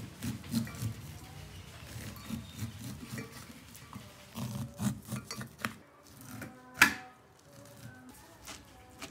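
Kitchen knife cutting kernels off a cob of corn into a stainless steel bowl: a run of soft knocks and scrapes as the blade strokes down the cob, with one sharp metallic clink about two-thirds of the way through.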